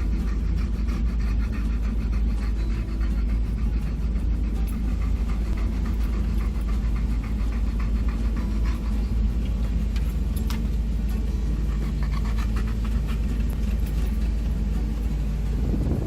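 Steady low rumble of a van driving, heard from inside the cabin: engine and road noise.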